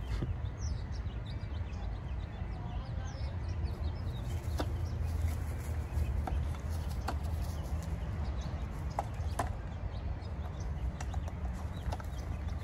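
Plastic hand broom brushing and tapping on dry dirt, heard as scattered short scratchy ticks over a steady low rumble, with faint animal calls in the background.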